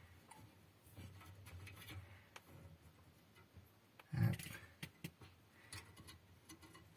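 Faint handling noises: light clicks and rubbing, with one short louder knock about four seconds in.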